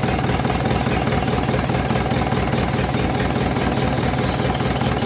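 Engine driving a generator set, running steadily at a constant speed with an even, rhythmic low pulsing.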